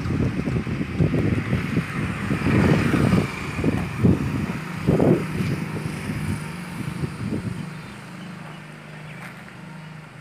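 Wind buffeting the microphone in uneven gusts, easing off over the last couple of seconds, with a steady low hum underneath in the second half.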